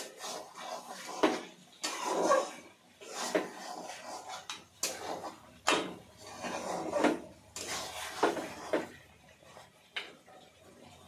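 A spoon scraping and clattering against a metal pot as chicken is stirred in hot oil, in irregular strokes about once a second, the last one near the end.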